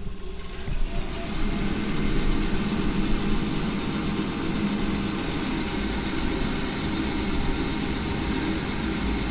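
Single-speed combustion fan of an old heat-only gas boiler spinning up over the first second or so, then running with a steady hum. The boiler does not fire: the fan is not tripping the air pressure switch, which is put down to either a faulty switch or a blocked venturi in the fan.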